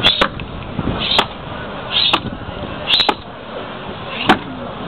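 Aizkolari's axe chopping into a log, the axeman standing on it and swinging down between his feet: five sharp strikes about a second apart.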